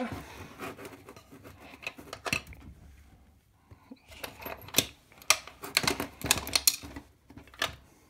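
Small metal door-lock parts being handled and fitted by hand: irregular clicks and light clattering in clusters, busiest in the second half.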